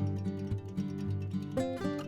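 Background music: acoustic guitar strummed and plucked.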